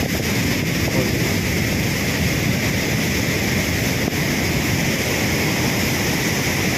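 Steady noise of wind on the microphone and sea surf, an even rush with no distinct events.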